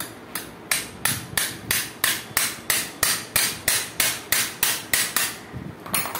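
Hammer tapping a small pin into a shift rail of a Tata Intra V30 gearbox: about fifteen quick metal-on-metal strikes, roughly three a second, each ringing briefly, with one last strike near the end.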